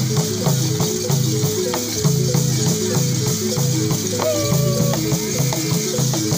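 Funeral mask-dance music: a balafon (West African wooden xylophone) repeats a quick cycling pattern of notes over the steady hiss of rattles and shakers. About four seconds in, a short held note sounds over it.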